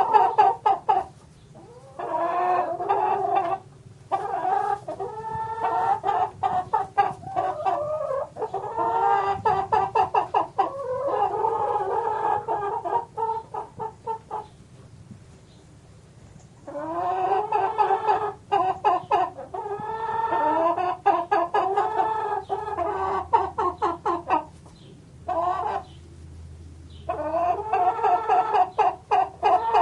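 Chickens clucking and cackling in rapid pulsed runs, coming in several bouts with short pauses, the longest pause about halfway through.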